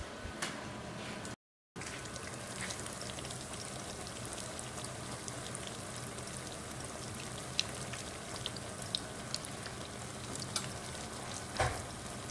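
Flour-battered sweet potato slices frying in hot oil in a pan: a steady sizzle with scattered small pops and crackles. Near the end a spatula knocks once in the pan. The sound cuts out briefly about a second and a half in.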